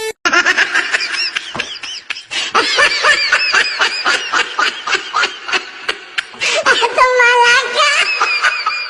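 High-pitched laughter in rapid, cackling bursts of about four to five a second, with a longer held squeal late on.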